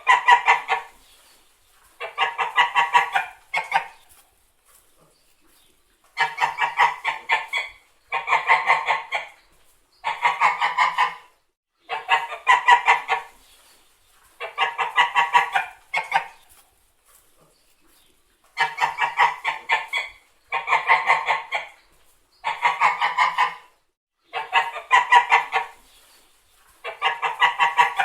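Domestic white geese honking: runs of rapid, harsh honks, each run about a second and a half long, repeating roughly every two seconds, with a couple of longer pauses.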